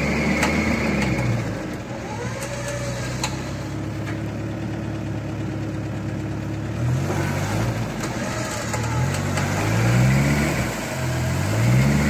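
UAZ-452 van's engine running steadily, then revved up and down several times from about seven seconds in as the van tries to drive out of boggy mud where it is stuck.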